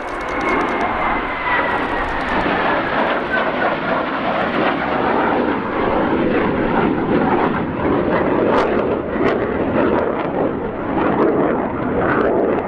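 Su-27's twin Saturn (Lyulka) AL-31F turbofan engines running loud in flight, a continuous jet roar with a whine that falls in pitch over the first few seconds.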